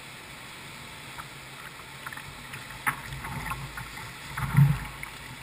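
Kayak paddle strokes: the blade splashing and dripping in the water over a steady rush of river water, with a heavier splash and thump about three seconds in and again near the end.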